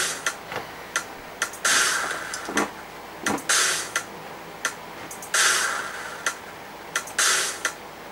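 Sparse instrumental hip-hop backing beat with no vocals: a hissy drum hit about every two seconds, with quick sharp ticks between.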